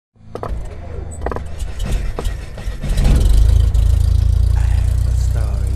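Logo-intro sound effects: a few sharp crackling hits in the first couple of seconds, then a loud, deep, steady low drone from about three seconds in.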